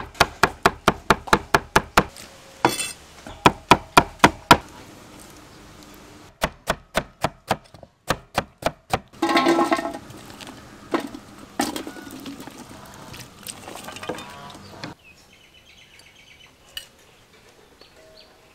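Cleaver chopping on a wooden cutting board in quick runs of strokes, about five a second, with short pauses between runs. A brief clatter comes near the middle, followed by a few scattered knocks, and the last few seconds are much quieter.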